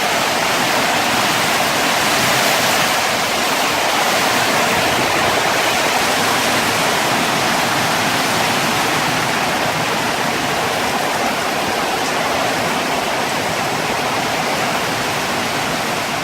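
Heavy rain pouring in a steady, dense rush, driven by strong wind.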